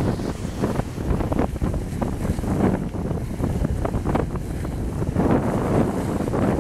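Wind buffeting the microphone: a gusty, uneven low rumble with no bird calls heard.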